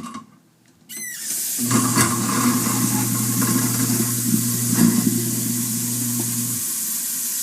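Kitchen sink garbage disposal running with a steady electric-motor hum for about five seconds, grinding down old cornbread left in it, then switching off near the end. Tap water runs into the sink throughout, and a short squeak sounds about a second in as it starts.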